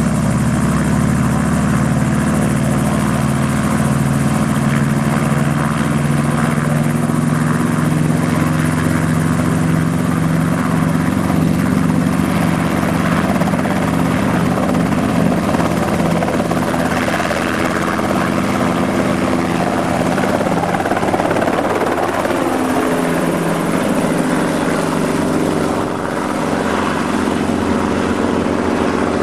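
Enstrom F-28C piston-engined light helicopter running with its main rotor turning, the engine note creeping up in pitch over the first half. In the later part it is heard in flight overhead, with its pitch shifting.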